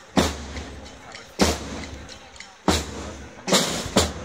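Slow procession drum beats, about one stroke every second and a quarter, each with a booming tail, with two strokes close together near the end.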